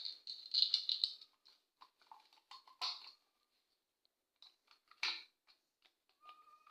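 Irregular small clicks, rattles and scrapes of a plastic two-gang light switch and its fittings being handled and fitted into the wall box, busiest in the first second, with one sharper click about five seconds in.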